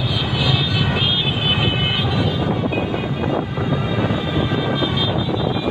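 Steady street noise from a moving motorbike among many others: scooter engines running, with wind buffeting the microphone.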